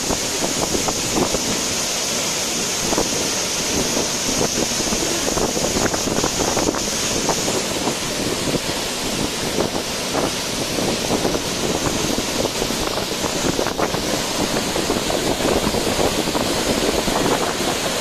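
Bhairavakona waterfall, swollen by heavy rains, crashing into its plunge pool: a loud, steady rush of falling water.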